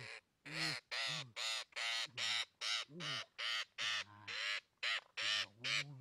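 Green parrot squawking harshly over and over, about two or three calls a second, as it is caught and held by hand: distress calls of a trapped bird.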